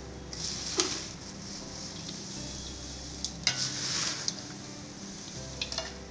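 Dry, crisp roasted poha (flattened rice) flakes rustling as a steel bowl scoops and turns them through a large steel plate, with a few light clicks of steel on steel. Two louder swishes come about half a second in and around three and a half to four seconds, as the spices and fried nuts are mixed into the chivda.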